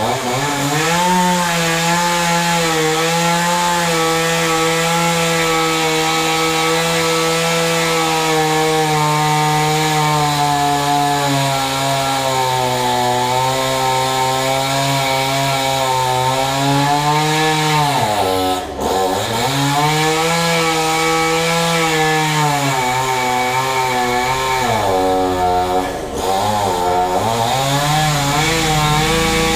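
Chainsaw running at high revs, cutting wood. Its engine note drops sharply and recovers about two-thirds of the way through, and dips briefly again near the end.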